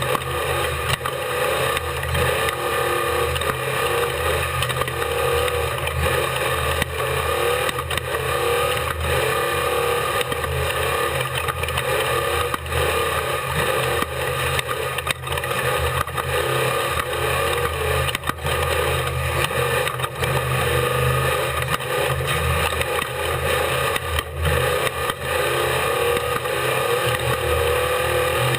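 Engine of an off-road race vehicle running continuously under load, heard on board during a lap, with its pitch wavering as the throttle changes. Frequent short knocks and rattles come through over rough ground.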